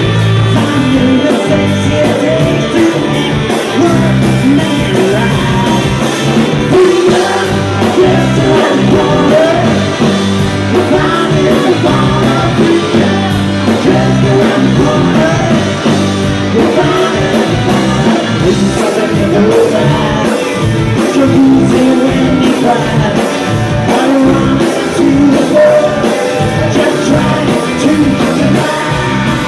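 Live rock band playing a song loud and steady: electric guitar, keyboard, bass, drum kit and saxophone, with singing over it.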